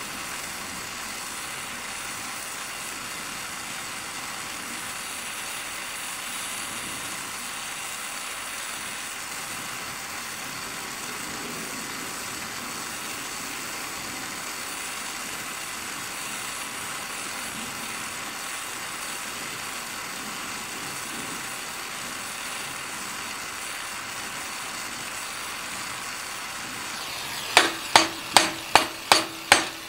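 Oxy-fuel torch flame hissing steadily as it heats the end of a steel bar held in a vise. Near the end, quick ringing hammer blows, about three a second, start on the red-hot bar end, upsetting it.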